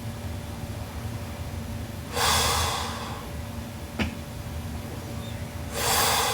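A sleeping person snoring: two loud, noisy snoring breaths about three and a half seconds apart, with a short click between them.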